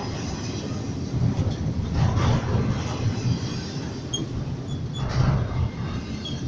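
Freight train rolling past: a steady rumble of wheels on rail, with a few faint short squeaks near the end.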